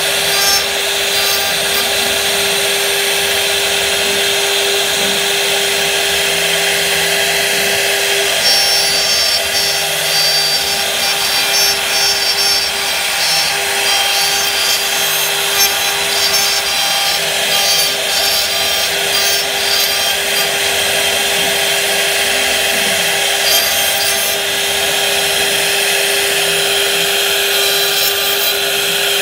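Spindles of a multi-head CNC router running with a steady whine while their carving bits cut floral relief into wooden panels, with a continuous rasping of wood being milled.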